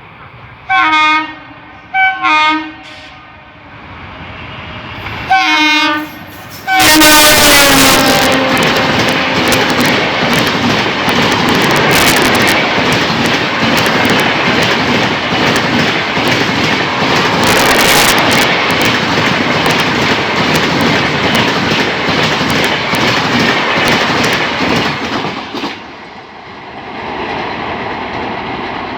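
WAP-7 electric locomotive's twin-tone horn sounding two short blasts, then a longer blast that drops in pitch as the locomotive passes close at about 115 km/h. The loud rush and wheel-on-rail clatter of the express coaches going by follows for some twenty seconds and eases off near the end.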